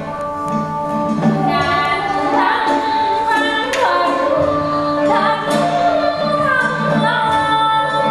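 Traditional Vietnamese water-puppet theatre music played live: women singing with gliding, ornamented lines over a small traditional ensemble, with sharp percussion strokes now and then.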